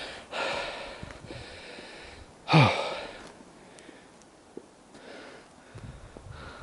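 A man breathing hard through his nose and mouth while on foot, with one loud grunting exhale about two and a half seconds in, its pitch falling.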